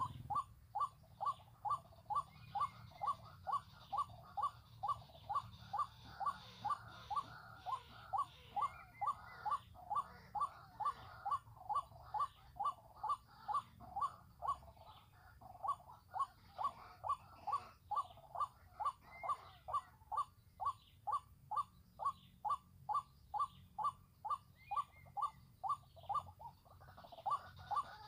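White-breasted waterhen (ruak-ruak) call: a monotonous 'kwak' note repeated steadily, about two a second. A few faint higher bird chirps come in now and then.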